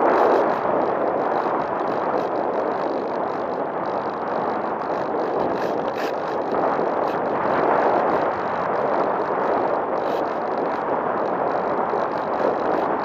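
Air rushing over the onboard camera of a Bixler v1.1 foam RC plane in flight: a steady wind-like rush that swells near the start and again about halfway through, then eases.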